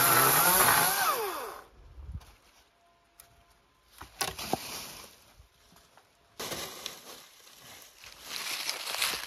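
Battery-powered electric chainsaw running with a high motor whine, then winding down with a falling pitch and stopping about a second and a half in. A few sharp knocks follow, then rustling from about six seconds in.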